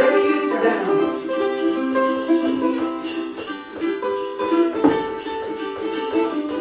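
A small ukulele band playing: several ukuleles strummed in a steady rhythm, with held chords and picked notes.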